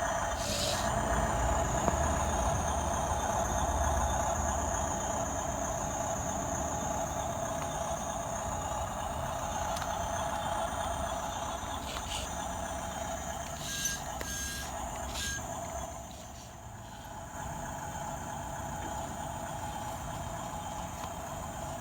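Radio-controlled construction models' electric motors and gearboxes whining steadily as they work, with a few short clicks and three short beeps a little past halfway, as from a reversing-beep sound unit.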